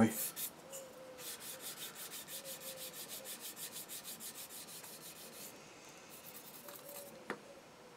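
A sanding stick rubbing quickly back and forth over a primed plastic model car body shell, about five strokes a second, smoothing down high spots in the primer. The strokes fade out after about five seconds, and there is a single light tap near the end.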